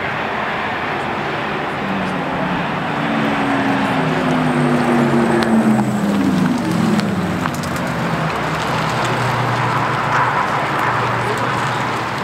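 Porsche Taycan electric car driving past close by, its piped-in synthetic exhaust sound played through the car's speakers giving a pitched hum. The hum swells, is loudest in the middle, then slides down in pitch and fades as the car moves away, over steady outdoor background noise.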